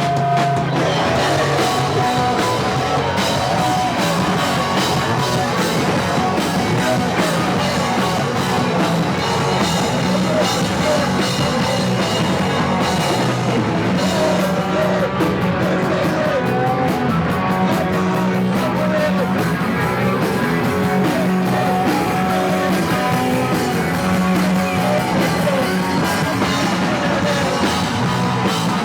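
A punk band playing live and loud: distorted electric guitar, bass and drum kit with vocals. The full band comes in right at the start, after a held guitar chord.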